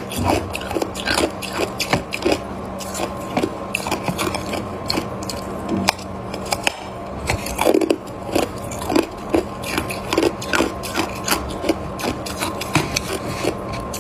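Hard, crushed ice being bitten and chewed close to the microphone: irregular sharp crunches and cracks, several a second, with no pauses.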